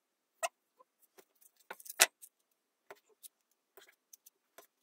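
Paper and adhesive tape being handled as a paper pattern is taped down onto a wooden board: a scatter of short crackles and clicks, the sharpest about two seconds in.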